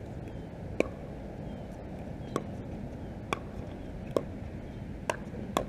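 A pickleball rally: paddles hitting the hollow plastic ball with sharp, short pocks, six hits about a second apart.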